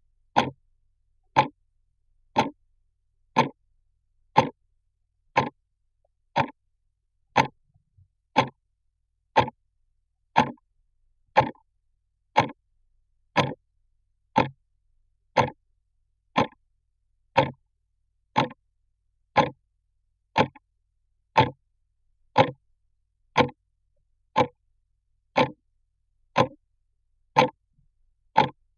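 Clock ticking, heard close up: one short, sharp tick about every second, perfectly steady.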